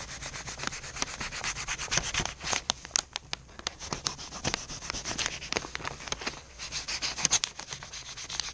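Pocketknife blade sawing and scraping through a sheet of paper: a rapid, irregular run of short scratchy strokes.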